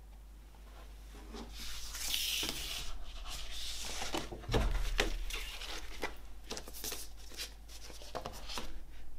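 Hands handling a vinyl LP and a large printed card insert on a wooden table: paper and card rustling and sliding, with scattered light taps, starting about a second in. One dull thump about halfway through is the loudest sound.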